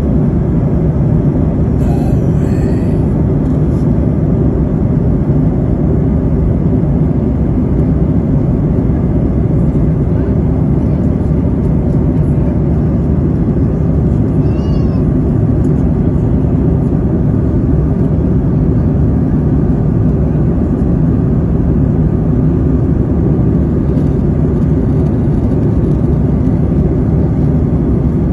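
Airliner cabin noise in flight: a steady, even low rumble of engine and airflow noise from a window seat.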